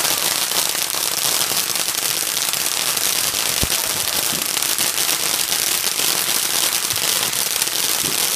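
Fireworks crackling continuously: a loud, dense hiss of rapid tiny pops, with one deeper pop about a third of the way through.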